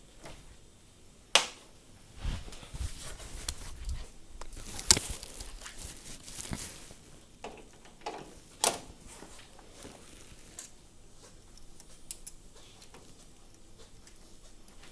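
Sporadic clicks and knocks of metal parts being handled while the towel rail brackets are fitted and tightened with an Allen key, with three sharper knocks about a second and a half, five and eight and a half seconds in.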